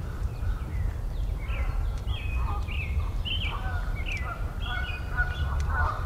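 Several songbirds chirping and singing in short, quick notes. About halfway in, lower, longer calls from another bird join them, and a steady low rumble runs underneath.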